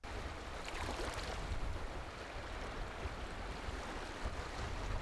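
Steady outdoor rush of river water and wind, with a heavy low rumble of wind buffeting the microphone.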